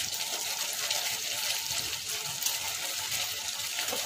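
Thickened Manchurian gravy simmering in a frying pan, giving a steady hiss and bubbling.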